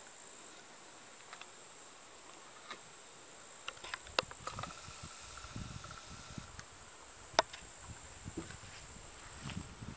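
Steady high-pitched chirring of insects in the summer grass, with a few sharp clicks, the loudest about seven seconds in.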